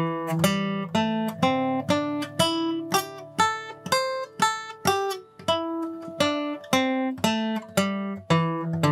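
Steel-string acoustic guitar playing a pentatonic scale slowly, one picked note at a time at about two notes a second, climbing in pitch and then coming back down.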